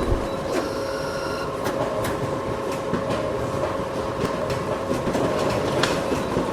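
Photocopier running: a steady mechanical whir with a steady hum and scattered sharp clicks.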